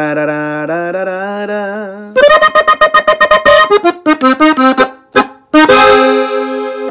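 Gabbanelli three-row button accordion tuned in F, playing a short ornamental run in E-flat. A held melody note wavers for about two seconds, then comes a fast burst of sharply repeated notes, a few short detached notes, and a held chord that ends the phrase.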